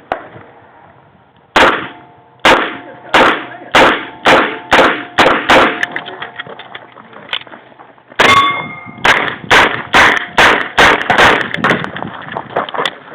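Smith & Wesson eight-shot revolver fired in rapid strings. Eight shots come about half a second apart, then a pause of about two and a half seconds, then another fast string of shots. Steel targets clang and ring between the shots.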